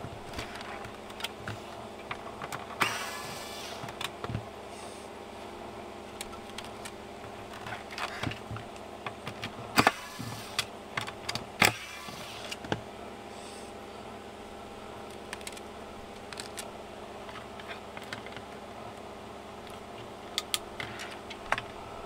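Plastic clicks and knocks from handling a vacuum cleaner's plastic body and cable, with short whirrs of a cordless screwdriver taking out the body screws.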